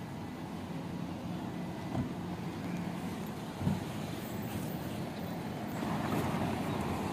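Traffic at an airport drop-off curb: a steady low rumble of cars idling and pulling through. There are two short thumps, about two seconds and about three and a half seconds in, and it grows a little louder near the end.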